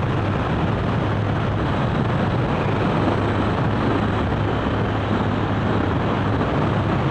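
Motorcycle engine running steadily at cruising speed, mixed with wind and road noise on the on-bike microphone.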